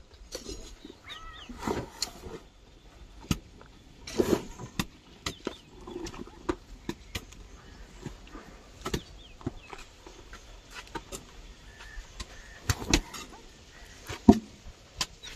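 Soil being loaded by hand into a tractor trolley: irregular knocks and clinks of metal basins and hoes scraping the earth, with a couple of louder rushes as basins of soil are tipped into the trolley.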